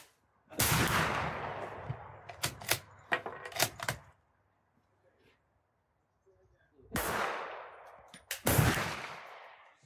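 Dutch M1871/88 Beaumont bolt-action rifle fired once, with a long echoing tail, then its bolt worked with several sharp metallic clicks as the spent case is ejected and the next round fed from the magazine. About six seconds later two more shots sound a second and a half apart, each with a long echoing tail, the last the loudest.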